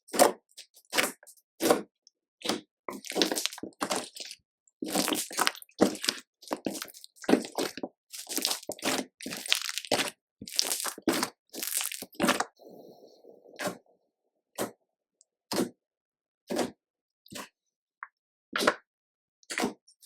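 Slime being squeezed, stretched and folded by hand, giving a string of sharp pops and crackles as air pockets burst. The pops come thick and overlapping for most of the first half, then thin out to single pops about once a second toward the end.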